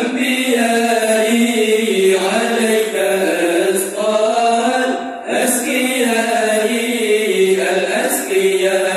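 Acehnese dike: a group of male voices chanting a devotional song in unison through microphones, with no instruments. The chant pauses briefly for breath at the start and about five seconds in.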